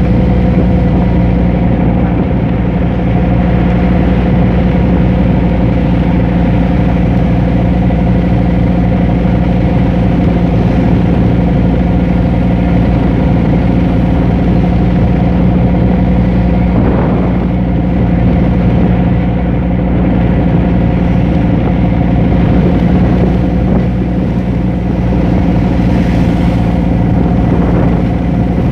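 Boat engine running steadily with a constant droning hum, and a brief rush of noise about two-thirds of the way in.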